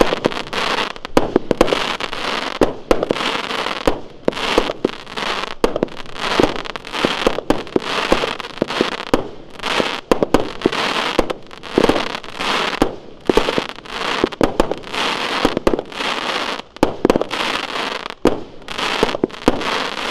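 Geisha Pyrorebels firework cake firing a steady run of shots, about two a second, each launch followed by a short crackle as the small stars break in the air.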